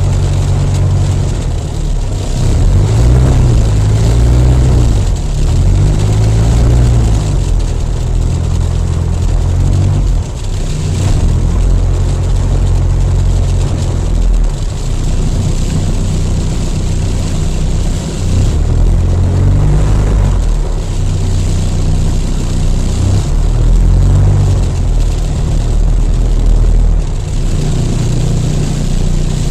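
Jabiru LSA-55 light aircraft's engine and propeller running at taxi power, heard from inside the cockpit. The engine note rises and falls several times as the throttle is worked.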